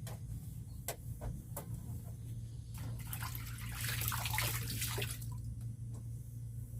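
Old refrigerator's compressor running with a steady low hum, just restarted after cleaning and defrosting. A few light clicks come in the first couple of seconds, then a louder hissing, rustling noise from about three to five seconds in.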